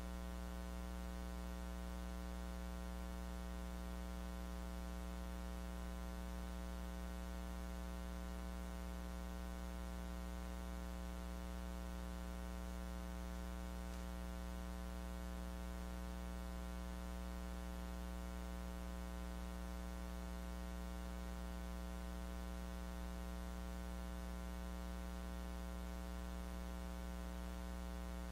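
Steady electrical mains hum with a buzzy stack of overtones over a faint hiss. This is the leftover noise of a recording whose lecture audio was lost.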